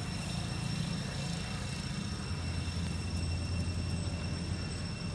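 Steady low engine rumble, growing louder about halfway through, over a faint steady high-pitched whine.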